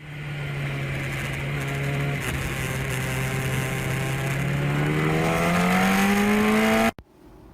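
An engine-like drone that holds a steady pitch, then rises steadily in pitch over its last few seconds and cuts off abruptly near the end.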